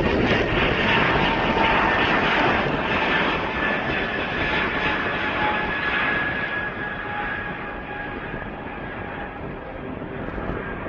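An airplane's engines passing by and receding: a broad rush with a faint steady whine that grows duller and quieter as the aircraft moves away.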